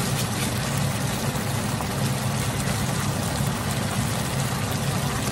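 Chicken pieces sizzling in soy and oyster sauce in a non-stick wok on an induction hob, frying down to dry, a steady hiss with a steady low hum beneath it.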